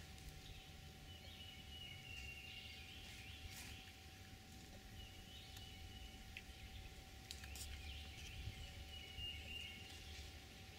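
Faint outdoor ambience with birds calling at intervals over a low background rumble, and a few light clicks.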